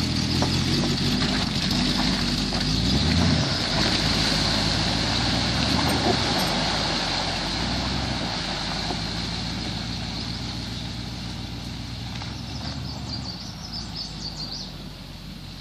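1986 Jeep Grand Wagoneer's carbureted AMC 360 V8 driving away over a muddy track. The engine note rises about three seconds in, then steadily fades as the Jeep pulls away.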